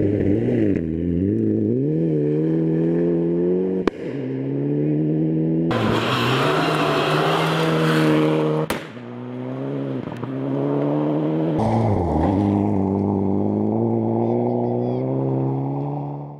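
Mitsubishi Lancer Evolution rally car's turbocharged four-cylinder engine revving hard on gravel, the revs repeatedly dropping and climbing again through lifts and gear changes, heard in several short clips joined together. From about six to nine seconds in, a loud rush of gravel spray and tyre noise joins the engine as the car slides past close by. The sound fades out at the very end.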